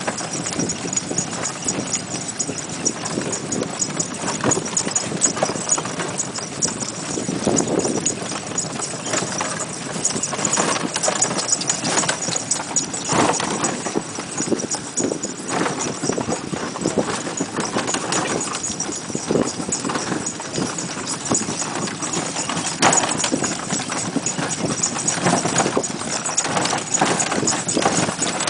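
A cart pony's hooves clip-clopping steadily along the road as it pulls the cart.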